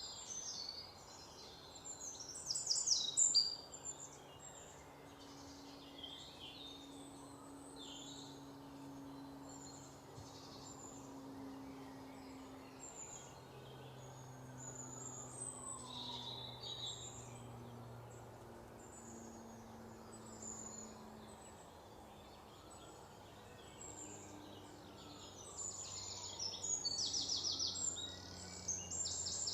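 Many forest birds singing and calling, short chirps and quick trills, over a steady background hiss. The loudest rapid trills come about two to three seconds in and again near the end.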